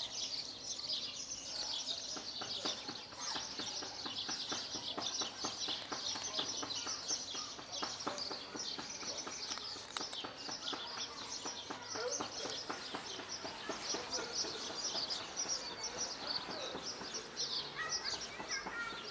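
Many small birds chirping continuously in a dense chorus, with short clicks mixed in.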